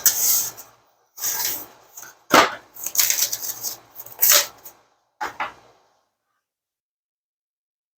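Packaging of new parallel clamps being handled and opened: irregular bursts of rustling and scraping, a few with sharper knocks. The sound stops abruptly about six seconds in.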